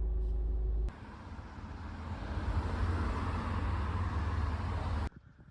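Car sounds: a heavy, steady low rumble with a faint steady hum. About a second in it cuts to a rushing road noise that grows louder and then stops abruptly near the end.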